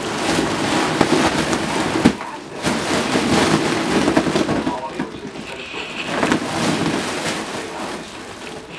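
Foil (mylar) teddy-bear balloon crinkling and crackling as a baby grabs, squeezes and pushes against it, with a sharp crackle about two seconds in.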